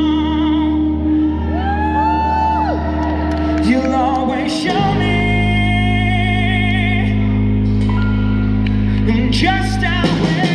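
Live indie rock band playing, with electric and acoustic guitars, bass, drums and keyboard holding long chords. A singing voice slides up and down about two seconds in, and the chords change about five seconds in.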